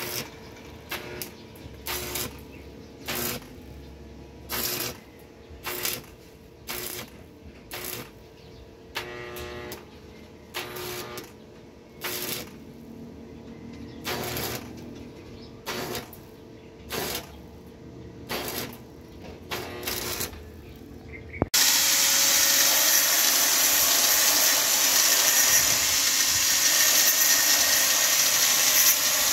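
Stick welder laying short stitch welds on a stainless steel tube frame: brief bursts of arc crackle about once a second. About two-thirds of the way through, an angle grinder on stainless steel takes over suddenly, running loud and steady.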